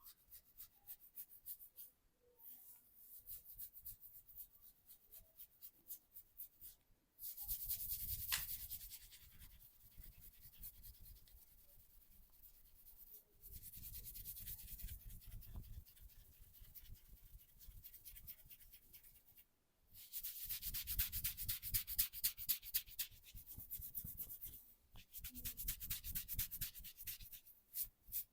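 Hands rubbing fast and rhythmically during a massage, quick repeated friction strokes in bouts of several seconds with short pauses between.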